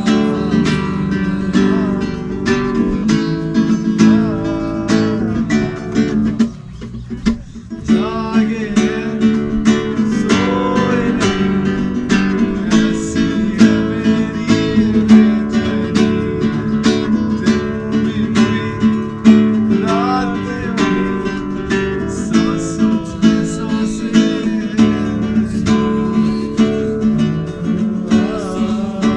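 Acoustic guitar strummed in a steady rhythm, briefly dropping away about seven seconds in before resuming.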